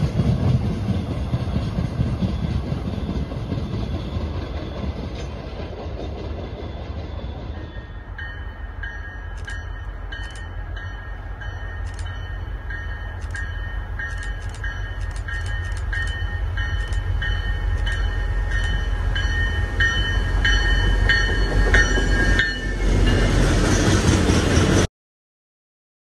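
A commuter train running on the rails at a station platform, with a low rumble. Then a second train, a work train of a tank car and flatcars, approaches and grows steadily louder, with steady high ringing tones and scattered clicks, before passing close with a loud rumble that cuts off suddenly near the end.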